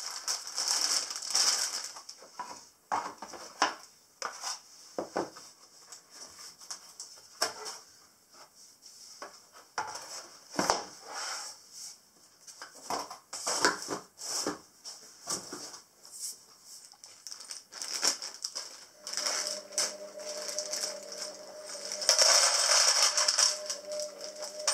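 Unpacking flat-pack pine furniture: a plastic bag of metal fittings crinkling and rustling, with irregular knocks and clatter as solid pine boards are lifted out of the cardboard box and set down. Louder plastic crinkling near the end as a bag of fixings is torn open.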